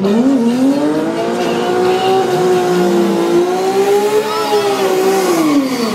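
Drag car's engine revving up and held at high revs for about five seconds while its tyres spin in smoke, then the revs fall away sharply near the end.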